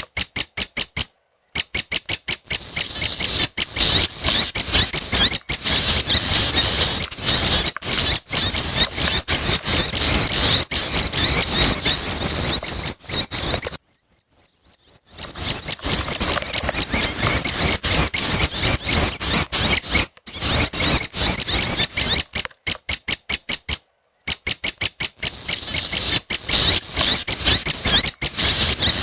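Young prenjak (prinia) birds giving rapid, high-pitched squeaky begging chirps in a dense stream, broken by short gaps and a brief pause about halfway through.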